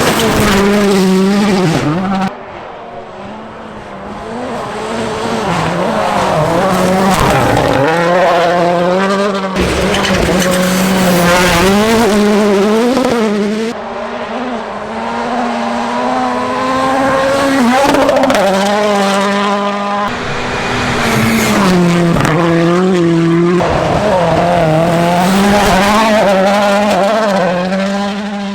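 World Rally Cars (1.6-litre turbocharged four-cylinders) driven flat out on a rally stage, engines revving up and dropping back through gear changes. Several passes are joined by abrupt cuts.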